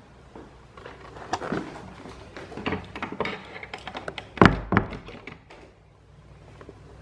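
A glazed wooden door with a metal lever handle being worked: a run of clicks and knocks, the loudest two close thumps about four and a half seconds in.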